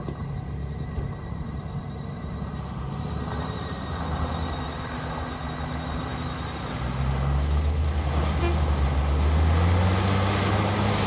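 Off-road vehicle engine running, growing louder and rising in pitch over the last few seconds as it speeds up or comes closer.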